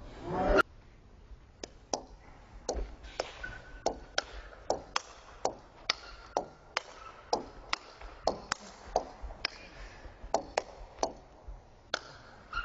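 Table tennis ball being hit back and forth in a rally: sharp clicks of ball on rubber and on the table, about two a second. A brief loud voice opens it.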